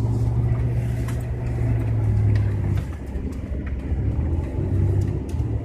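Truck engine and road noise heard from inside the cab while driving in snow: a steady low drone that eases and turns uneven about three seconds in, with a few faint ticks.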